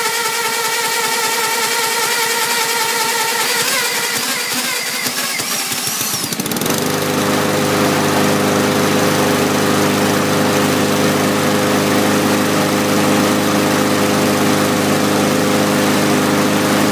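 A cordless drill whines at a steady speed, spinning a Honda GCV160 lawnmower engine by its flywheel nut, cranked without the choke. About six seconds in, the single-cylinder four-stroke fires and takes over, then runs steadily.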